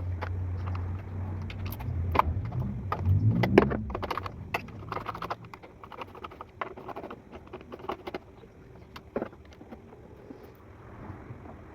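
Metal tools clicking and clinking in short, irregular taps while a car's throttle body is being unbolted and removed. A low hum underneath stops about four seconds in.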